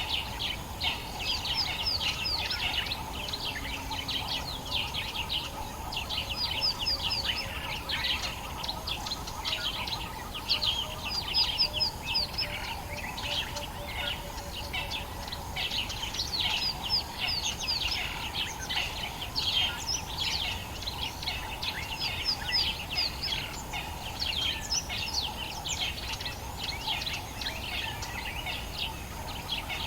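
Dawn chorus of many birds in the African bush, calling over one another in dense, rapid, high chirps and twitters, with a steady lower hum beneath.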